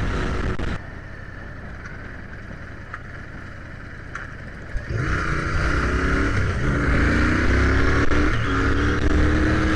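Royal Enfield Continental GT motorcycle engine under way. About a second in the sound drops as the throttle eases off. About five seconds in it opens up again, and the engine note climbs steadily as the bike accelerates.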